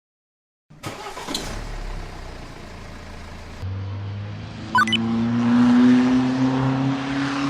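An engine starting up and running, its pitch slowly rising as it revs.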